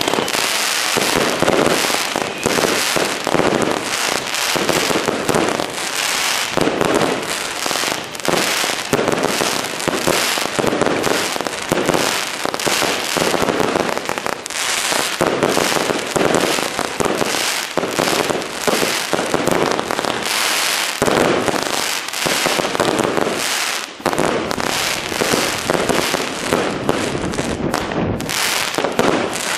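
Three Rubro Secret Salute 54-shot salute cakes, chained by quick fuse, firing a rapid, unbroken barrage of shots and loud bangs that overlap one another.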